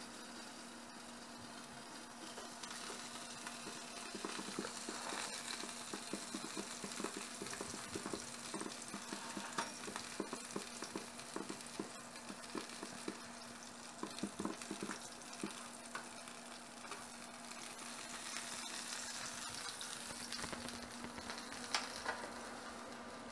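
Tilefish sizzling and crackling on the grill tray of a toaster oven, over a steady low hum. Near the end, a single sharp metal clack as the hot tray is set down on the counter.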